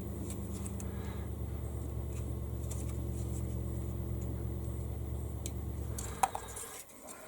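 Steady low mechanical hum, like an engine or motor running, that cuts off about six seconds in; a few light clicks over it.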